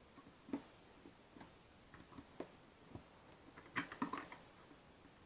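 Scattered small clicks and knocks of tape measure parts being handled and fitted together, with a louder cluster a little under four seconds in.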